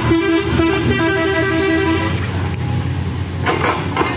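A road vehicle's musical multi-tone horn plays a rapid run of short alternating notes for about the first two seconds, then stops. Under it, the excavator's diesel engine runs steadily, and a couple of sharp knocks come near the end.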